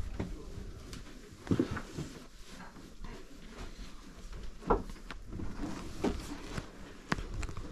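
A few short knocks and clunks, four spread over several seconds, over low background noise in a small room.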